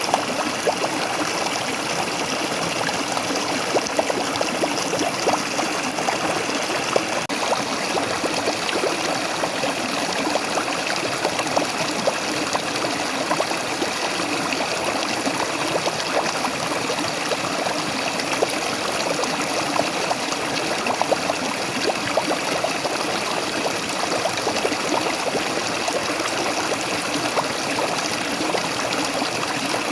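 Waterfall: water pouring and splashing in a steady rush, with fine trickling and spattering throughout and no change in strength.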